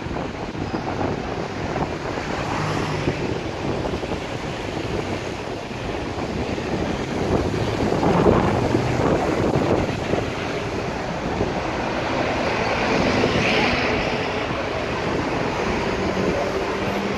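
Busy city road traffic: engines of buses, coaches and cars running close by over a steady rush of tyres on tarmac. It swells as vehicles pass, about eight seconds in and again later.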